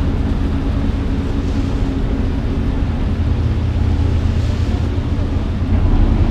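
Party fishing boat's engine running steadily at low speed as the boat maneuvers at the dock, its propeller churning the water astern. The engine note picks up slightly near the end.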